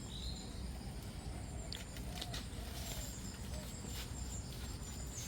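Quiet outdoor ambience: a steady low rumble with a faint, steady high-pitched insect whine and a few light clicks.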